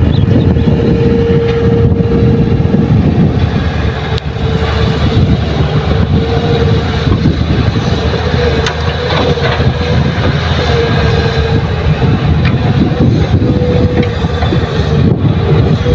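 Heavy diesel machinery of an excavator loading a dump truck running hard, a deep steady rumble with a high whine that comes and goes. A couple of sharp knocks stand out, about four and about nine seconds in.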